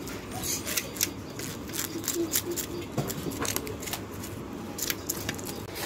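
Scales being scraped off a hilsa fish on a steel plate: a quick, irregular run of short scratchy scrapes and clicks.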